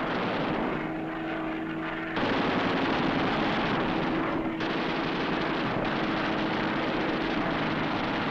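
Fighter plane's engine running at high power, a continuous roar with a steady hum through it. The sound changes abruptly about two seconds in and again about four and a half seconds in.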